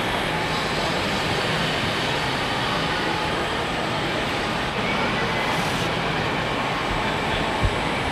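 Steady, even din of a large busy hall, with one short low thump near the end.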